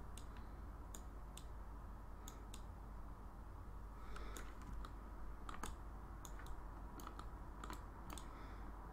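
Faint, irregular clicking of a computer mouse, a few clicks a second, as settings are adjusted on screen, over a steady low background hum.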